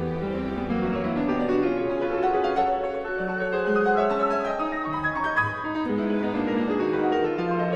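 Classical-style piano music, a steady run of held notes moving through a melody over lower chords.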